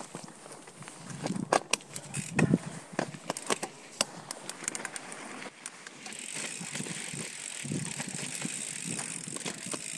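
Mountain bike riding fast down a rocky dirt trail, heard from a chest-mounted camera: tyres on dirt and stone, with sharp rattles and clicks from the bike over bumps. From about six seconds in, a steadier rushing hiss builds as it rolls onto smooth rock.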